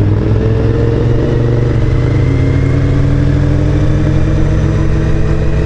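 Motorcycle engine running while riding at low road speed, its pitch rising slightly about a second in and then holding steady, over a constant low rumble.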